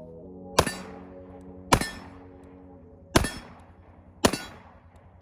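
Gunshots from a firearm on a range: four sharp shots spaced a second or so apart, with a fifth at the very end, each with a short echoing tail, over quiet background music.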